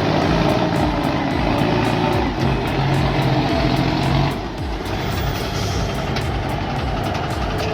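Heavy truck engine running, with background music. The engine noise drops and changes about four seconds in.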